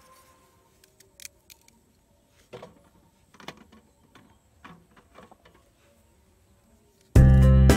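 A few faint, scattered clicks and light rustles at irregular intervals, then background music comes in loudly near the end.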